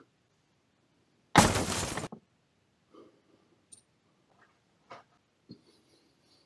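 A sudden loud burst of hissing, crashing noise lasting under a second, about a second and a half in, followed by a few faint rustles and small taps.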